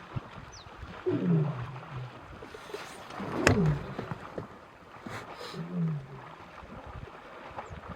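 Male lion roaring: three deep grunting calls about two seconds apart, each falling in pitch, the trailing grunts of a roaring bout. A sharp knock comes about three and a half seconds in.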